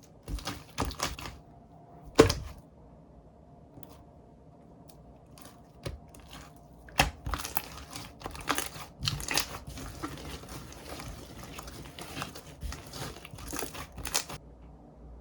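Slime being squeezed, poked and stretched, giving irregular sharp clicks and crackles. A loud snap comes about two seconds in, and a busier run of crackling follows from about seven seconds until shortly before the end.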